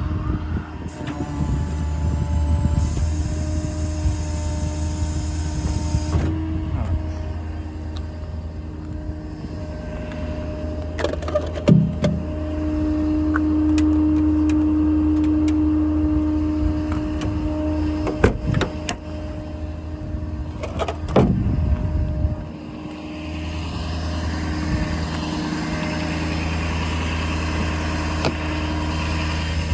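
A service truck's 6.7 Power Stroke diesel running while the IMT crane's hydraulics swing the boom back and set it down: a steady low hum, a held whine for several seconds in the middle, and a few clunks. The sound drops to a lower, even running note about three-quarters of the way through.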